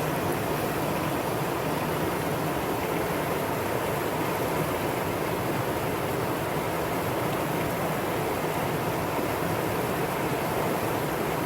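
Valley stream water rushing, a steady even rush with no breaks.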